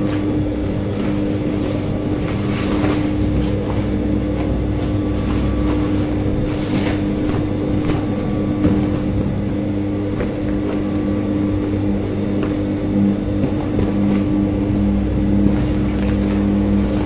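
Steady electric hum of an industrial sewing machine's motor, with a few brief rustles of cloth being handled.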